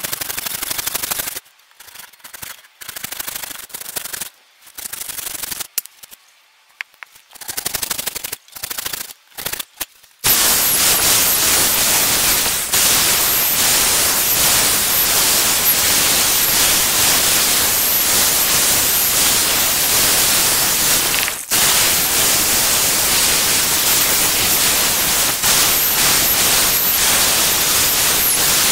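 Handsaw sawing into a wooden staff head in a series of short strokes. About ten seconds in, a corded electric drill starts and runs steadily as it bores into the wood, stopping briefly about two-thirds of the way through.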